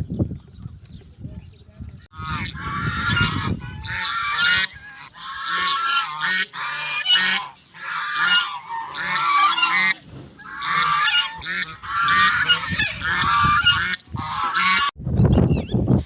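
A flock of farm fowl honking continuously and densely. It starts about two seconds in and breaks off about a second before the end.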